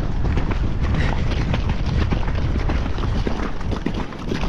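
Hoofbeats of a ridden horse, many quick thuds over a steady low rumble.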